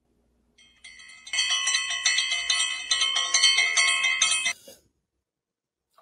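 A short jingle of bright bell-like chimes, several ringing tones struck one after another. It starts faintly about a second in, grows louder, and stops a little over a second before the end.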